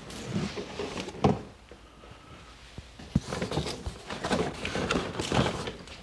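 Household objects being handled: a few sharp knocks, the loudest about a second in, then a denser stretch of clattering and rustling in the second half.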